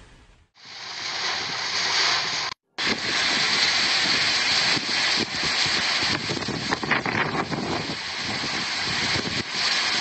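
Typhoon wind and rain on a phone microphone: a loud, steady rushing hiss with irregular gusty swells. The sound drops out briefly at about half a second and again just under three seconds in.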